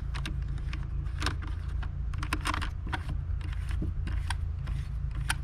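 Irregular clicks and light rattles of a pool pump's metal band clamp and its plastic knob being threaded on by hand to draw the clamp around the Sta-Rite Dura-Glas pump housing.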